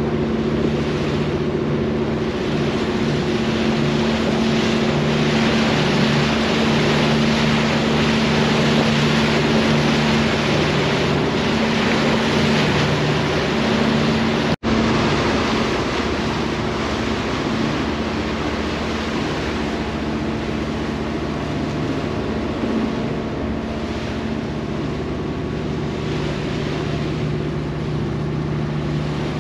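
A passenger ferry's engine running steadily, a low hum under the rush of water and wind as the boat travels. The sound cuts out for an instant about halfway through.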